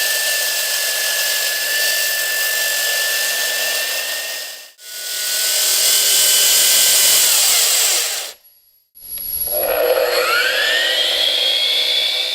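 Core Cut C14 electric handheld concrete saw with a 14-inch diamond blade, running at full speed and cutting concrete wet, heard in several short clips with a steady whine over the cutting noise. In the last clip the motor spins up from rest with a rising whine.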